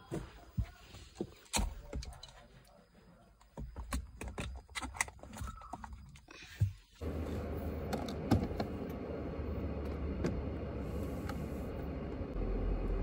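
Clicks and light knocks of a plastic iced-drink cup and other small things being handled and set into a car's cupholder. About seven seconds in, a steady low hum of a car's interior sets in.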